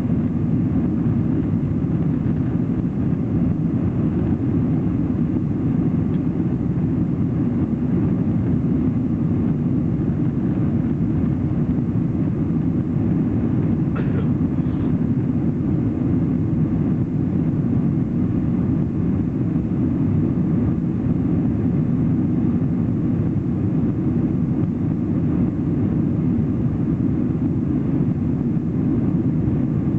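Steady engine and airflow noise inside the cabin of a Boeing 747 in its climb after take-off: an even, low-heavy noise that does not change. A faint click sounds about fourteen seconds in.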